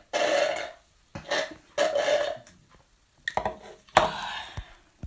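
Liquid being sucked up through a drinking straw in three slurping pulls, followed near the end by two short, sharp throaty sounds.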